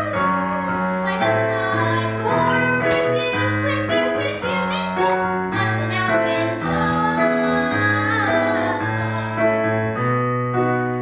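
Singing with piano accompaniment: a voice carrying a wavering melody over steady piano chords and bass notes.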